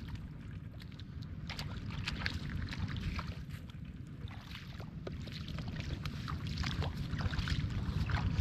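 Water splashing and sloshing in short, irregular strokes as hands or feet work through shallow floodwater, over a steady low rumble.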